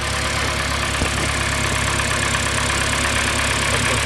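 UAZ Patriot engine idling steadily with a clacking knock from its hydraulic valve lifters (lash adjusters), a lifter knock that the owner means to cure by cleaning and bleeding the lifters.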